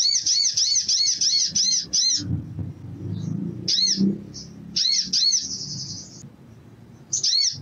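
Male olive-backed sunbird calling in rapid series of high, arching chirps, about five a second, in several bursts, one running into a short buzzy trill. A low rumbling noise runs under the middle of the calling.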